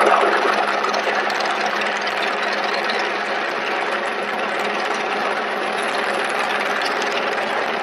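Helicopter hovering overhead: steady engine and rotor noise, easing slightly over the first couple of seconds and then holding level.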